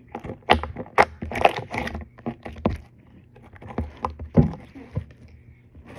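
Sticky goo from a popped squishy toy being squeezed and pulled by hand: irregular wet clicks and smacks, the loudest about four and a half seconds in.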